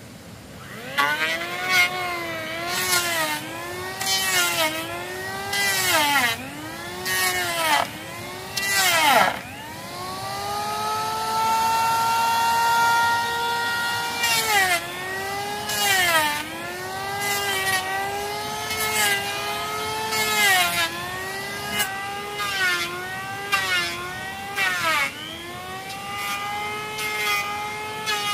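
Corded electric power tool working wood: its motor whine sags in pitch and recovers about every one to one and a half seconds as it bites into the board, each dip with a burst of cutting noise. About ten seconds in it runs free at a steady higher pitch for a few seconds, then the loaded passes resume.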